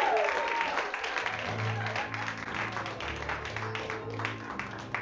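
Audience applauding, with a few voices cheering at the start. About a second in, music with a steady pulsing bass comes in under the clapping.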